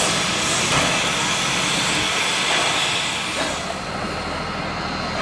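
Steady rushing roar of a moving train, easing a little about three and a half seconds in.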